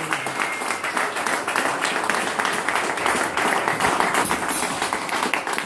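Audience applauding at the end of a live song, a dense irregular patter of handclaps.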